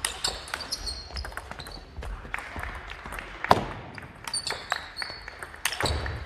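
Table tennis ball clicking off rackets and table in a rally, at irregular intervals, with the sharpest hit about three and a half seconds in. Sports shoes squeak briefly on the gym's wooden floor between the hits.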